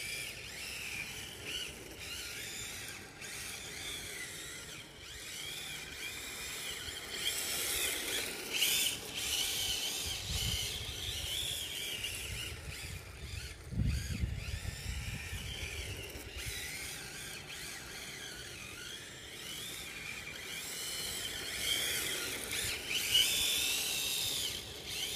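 Brushless electric motor of an MST FXX-S RC drift car whining, its pitch rising and falling again and again with the throttle, over a hiss from its hard drift tyres sliding on asphalt.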